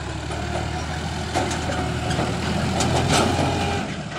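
Sonalika DI 750 tractor's diesel engine running steadily as it drags the empty trolley through deep loose sand, with a few sharp knocks along the way. The drone drops away sharply near the end.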